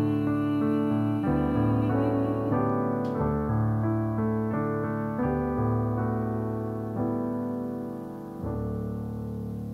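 Slow instrumental piano music: chords change about once a second, and the last one, struck a little after eight seconds in, is held and slowly fades.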